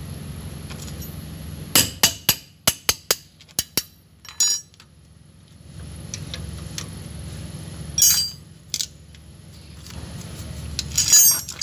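Metal hand tools clicking and clinking on a brake caliper as its mounting bolts are loosened for removal. There is a quick run of about eight sharp clicks a couple of seconds in, a few more metallic clinks later, and a loud clatter near the end, over a steady low hum.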